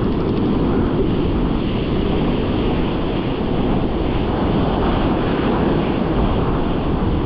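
Wind buffeting the microphone over steady breaking surf: an even, rumbling noise with no distinct events.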